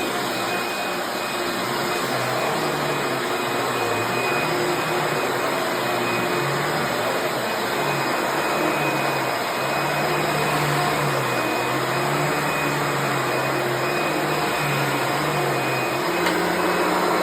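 Eureka The Boss Plus upright vacuum cleaner running steadily, a whooshing motor noise with a thin high whine held at one pitch.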